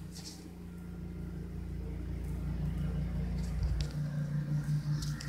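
Low steady rumble of a bicycle rolling fast along an asphalt road, with a faint pulsing hum, growing gradually louder.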